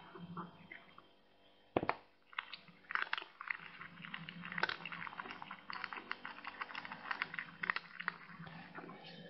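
Cat chewing and biting on dry plant stems: crisp crackles and crunches, sparse at first with one sharp snap near two seconds in, then coming thick and fast.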